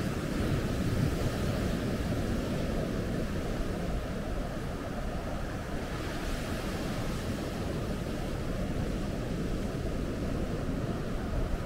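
Ocean surf washing onto the beach, with a wave's hiss swelling about six seconds in, over a steady low rumble of wind on the microphone.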